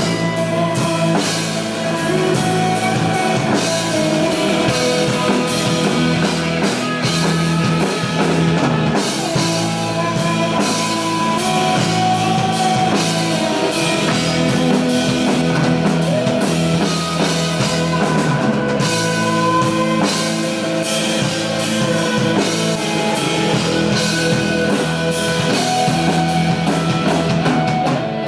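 Rock band playing live: two electric guitars over a full drum kit with steady drum and cymbal strokes.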